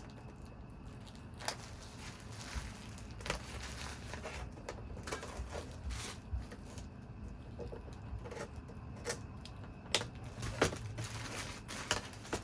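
Scattered light clicks and taps of small metal and plastic parts being handled, from work on an LCD monitor's metal backlight housing and its wiring.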